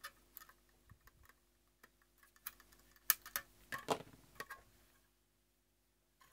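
Side cutters trimming the excess leads of newly soldered LEDs on a circuit board: a scatter of small sharp clicks, followed by a few louder clicks and knocks as the board is handled and turned over on the bench.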